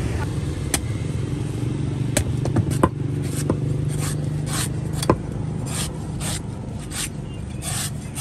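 Meat cleaver chopping and shaving the husk off a green coconut on a wooden board: a dozen or so sharp chops, about one every half second to second, starting under a second in. A steady low hum runs underneath.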